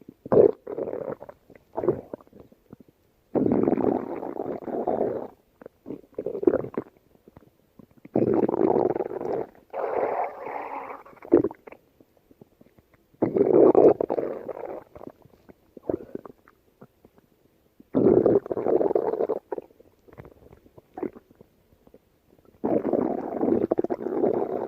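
Empty, hungry human stomach growling: a string of long rumbles, one to three seconds each, with short gurgles and pops in between.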